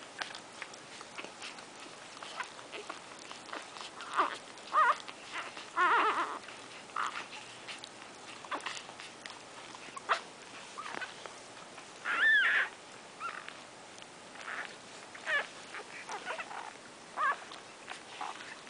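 Week-old Shorkie Tzu puppies nursing, giving short high squeaks and whimpers every few seconds. The loudest is a squeal that rises and falls about twelve seconds in. Small clicking suckling sounds run underneath.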